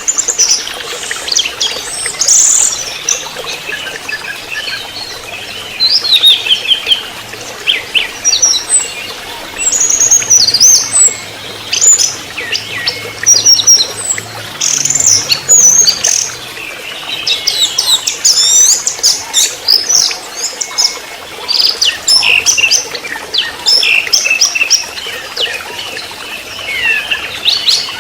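Orange-headed thrush singing a varied song of quick whistled and twittering phrases in repeated bursts, with short pauses between them, over a steady background hiss.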